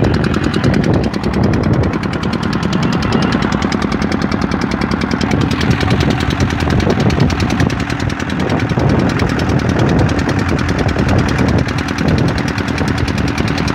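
A fishing boat's engine running steadily under way: a loud, fast, even chugging beat.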